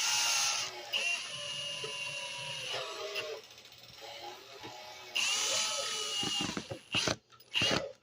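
Cordless Milwaukee drill's brushed motor run twice on test, its switch freshly freed and oiled. It spins up with a rising whine, runs for about three seconds and winds down, then runs again more briefly about five seconds in.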